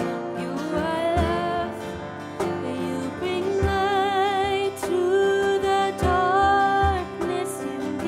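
A woman singing a slow worship song with vibrato on held notes, over a strummed acoustic guitar and an upright piano.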